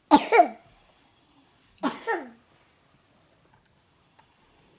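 A person coughing twice, about two seconds apart. Each is a short double hack that trails off in a falling voice.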